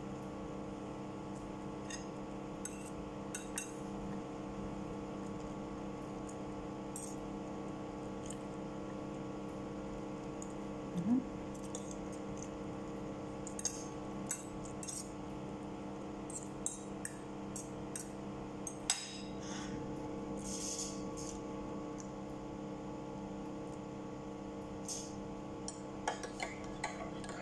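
A fork and knife clinking and scraping now and then on a plate of noodles and boiled eggs, with chewing, over a steady humming drone with several pitched tones.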